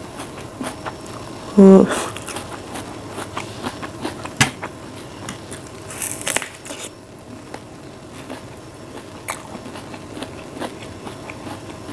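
Close-miked eating of juicy mango flesh: wet mouth clicks while biting and chewing, and a hissy slurp about six seconds in. A brief loud hummed vocal sound comes from the eater near the start.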